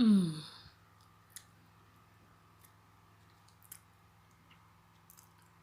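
A woman's short voiced sound, falling in pitch, then a few faint scattered clicks as she takes a teaspoon of a honey, garlic and ginger remedy.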